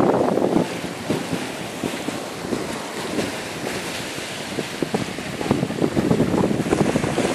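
Wind buffeting the microphone in gusts, over small waves washing onto shore rocks; the gusts pick up again near the end.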